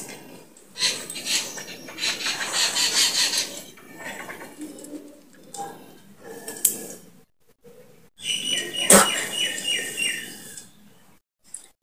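Wet spitting and mouth sounds as a woman works up saliva and spits it into a glass, in irregular sputtering bursts. Near the end there is a quick run of high chirps and a sharp click.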